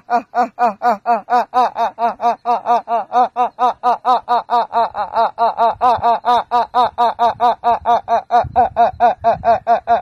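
A man's forced, exaggerated laugh: a fast, evenly paced staccato "ha-ha-ha" of about five pulses a second, kept up without a break. It is hard to place, somewhere between laughing, crying and a pigeon calling.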